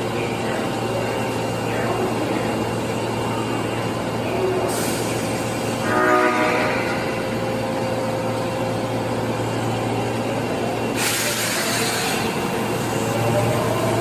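Osaka Metro 22 series train (set 22662F) giving one short blast of its horn, which has an unusual, off-sounding tone unlike the rest of the fleet's. A hiss of air follows several seconds later, then a rising motor whine as the train starts to pull away.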